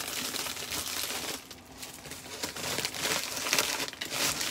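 Plastic wrapping and a USPS plastic mailer crinkling and rustling as they are handled and packed, easing off about a second and a half in, then louder again near the end.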